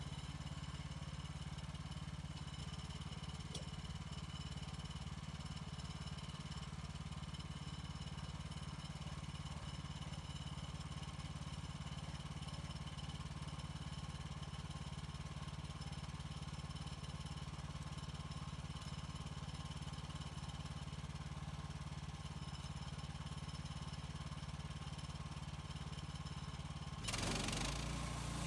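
An engine idling steadily. About a second and a half before the end it suddenly gets louder, with a rush of noise across the whole range and a change in the low engine note.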